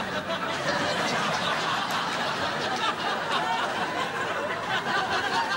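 Studio audience laughing together, a steady wave of many voices at once.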